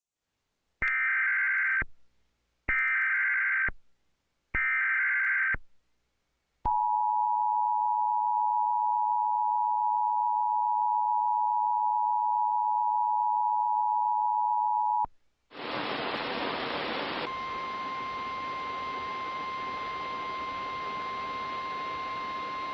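Emergency Alert System tornado-warning header: three one-second bursts of buzzing digital data tones, then the two-tone attention signal held steady for about eight seconds. About two seconds after the tones stop, a steady hiss starts with a single steady tone running through it, leading into the warning message.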